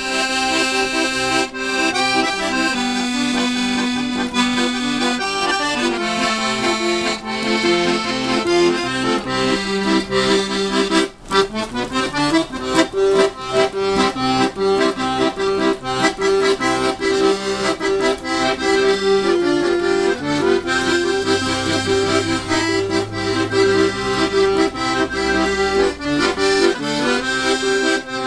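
Accordion playing a tune over sustained chords. There is a brief break about eleven seconds in, after which the notes come quicker and shorter.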